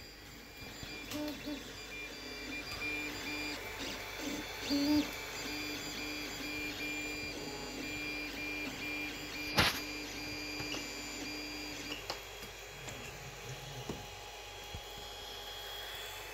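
Creality CR-10S 3D printer running a print: its stepper motors give several steady whining tones over a mechanical hum. There is one sharp click a bit past the middle, and the lowest whine stops about three-quarters of the way through.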